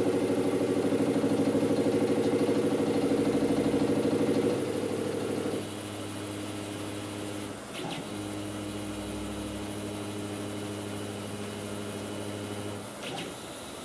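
CNC router's stepper motors driving the bit through an automatic edge-probing cycle. A steady mechanical hum shifts level and pitch several times as the axes change moves, with a short break partway through, and stops shortly before the end.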